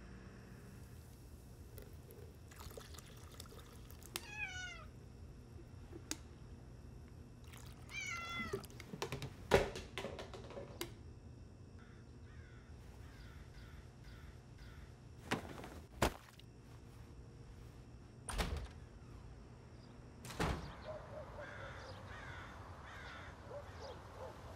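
Kitchen handling sounds around a bottle: several sharp knocks and thunks, the loudest about ten seconds in. Two short animal calls, falling in pitch, come about four and eight seconds in.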